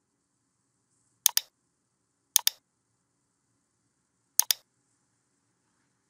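Computer mouse button clicking three times, each a quick pair of clicks.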